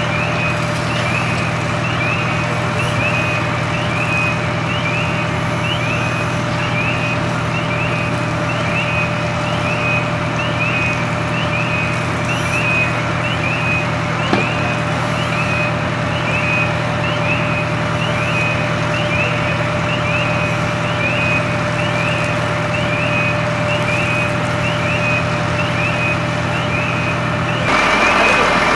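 Fire engine running steadily, with a short high electronic chirp repeating a little more than once a second over it. The low engine drone cuts off abruptly near the end.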